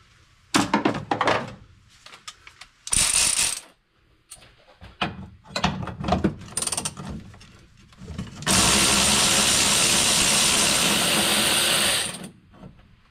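Cordless electric ratchet backing out a bolt on a steel support bar. Clicks and knocks of the socket being fitted come first, with a short burst of the ratchet about three seconds in. Then the ratchet runs steadily for about three and a half seconds before stopping.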